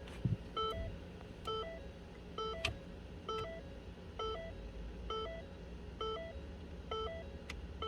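Ford Escape's electronic warning chime sounding over and over, a two-note ding repeating a little faster than once a second, with a faint click or two from work on the shifter.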